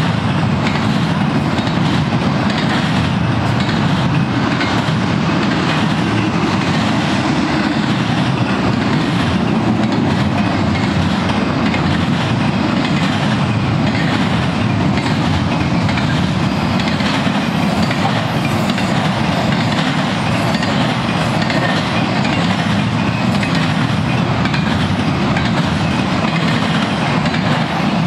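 Freight cars of a BNSF intermodal train rolling past at steady speed: a continuous rumble of steel wheels on rail, with repeated clickety-clack as the wheels cross the rail joints. The cars are double-stack container well cars and trailer-carrying flatcars.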